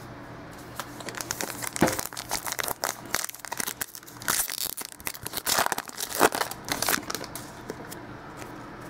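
Foil wrapper of a trading-card pack crinkling and tearing as it is ripped open by hand: a run of irregular crackles and rips starting about a second in and dying away near the end.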